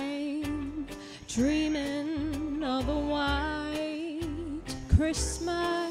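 A woman singing long held notes with vibrato over a recorded backing track with a steady beat. A single loud thump comes near the end.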